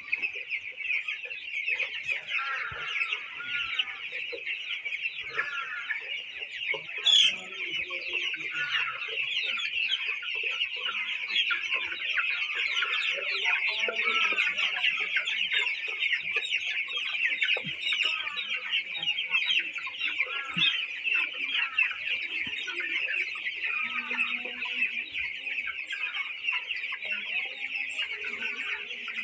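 A large flock of young broiler chickens peeping and chirping all at once in a dense, continuous chorus. A brief sharp louder sound stands out about seven seconds in.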